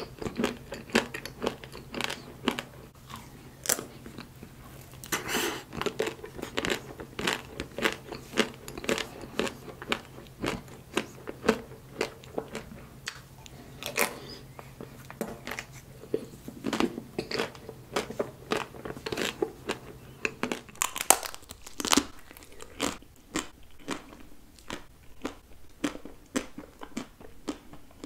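Close-miked eating of chocolate-coated ice cream bars: a rapid run of sharp crunches as the chocolate shell cracks, with chewing and mouth sounds in between.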